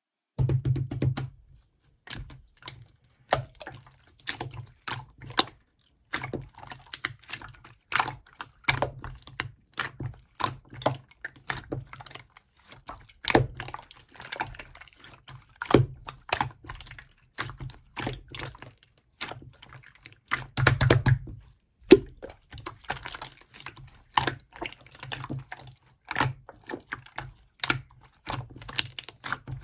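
Slime being squished, pressed and stretched by hand, making a run of irregular wet clicks and small pops as trapped air bursts, with a couple of heavier squelches about a second in and near 21 seconds.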